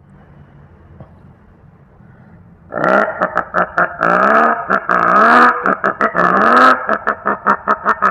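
A man imitating a Yamaha RX100 two-stroke motorcycle with his voice. About three seconds in, the vocal engine starts up and revs several times in rising pitch sweeps, broken by rapid popping pulses that speed up toward the end.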